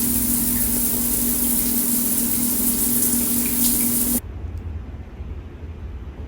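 Water running hard from a tap with a steady pipe hum, shut off suddenly about four seconds in, leaving a low background hum.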